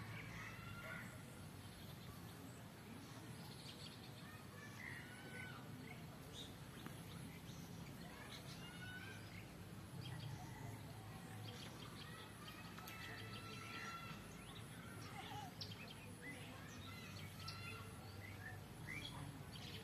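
Many short chirps and brief gliding whistles from several small birds calling on and off, over a steady low background rumble.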